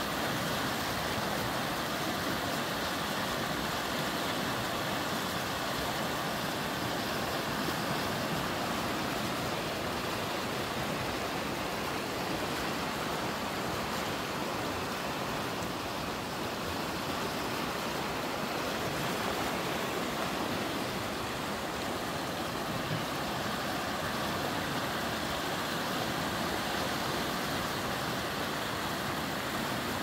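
Swollen, muddy river rushing and splashing over rock rapids: a steady, unbroken rush of water.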